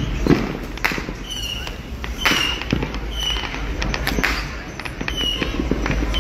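Fireworks and firecrackers going off: a string of irregular sharp bangs and pops, with a short high chirp repeating about once a second.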